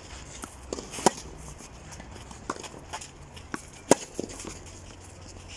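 Tennis ball struck back and forth by rackets in a rally on a clay court: sharp pocks, the loudest about a second in and just before four seconds, with fainter knocks between.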